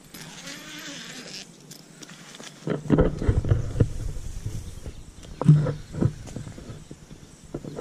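The end of a song with a singing voice, cutting off about a second and a half in. From about three seconds, irregular low thumps and rustling of footsteps in flip-flops and a handheld camera being moved about.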